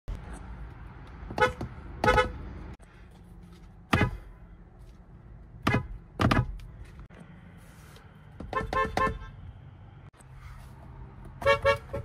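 Short toots from the steering-wheel horns of Korean cars, Kias among them, taken car after car. Each beep is brief, and most come in quick pairs.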